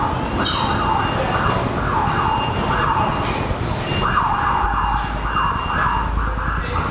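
Subway train wheels squealing on curved track: a loud, high warbling squeal that rises and falls about twice a second, with a short break around the middle.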